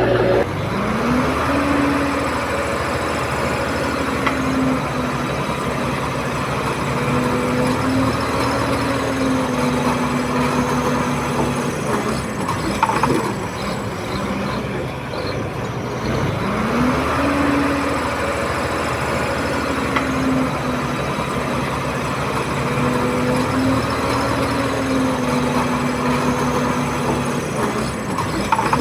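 Komatsu D31P bulldozer's diesel engine working under load. Its pitch rises sharply about a second in and holds with small steps for about ten seconds, then eases off, and the same rise comes again a little past halfway. There is a short clank shortly before halfway.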